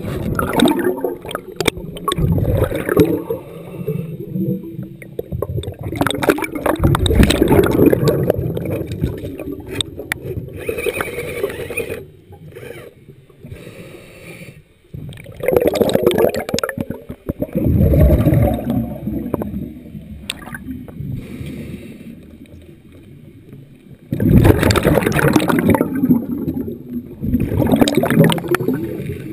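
Underwater bubbling and water rumble, coming in several long surges a few seconds apart with quieter gaps between them.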